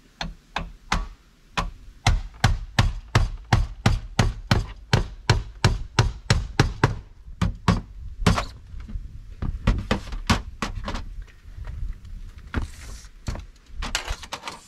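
Claw hammer striking sheet-metal roof flashing: a quick, even run of blows about three a second, then slower, spaced blows, with some scraping near the end.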